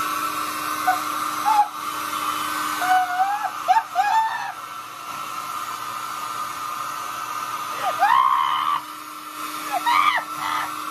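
Hair dryer running steadily with an even hum, drying hair during styling.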